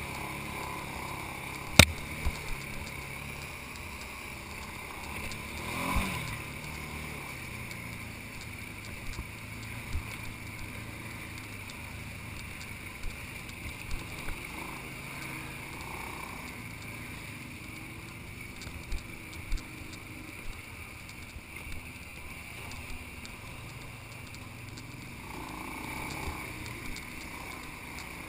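ATV engine running at trail speed, its note dropping about six seconds in, with scattered sharp knocks and rattles from the machine jolting over the rough dirt trail, the loudest about two seconds in.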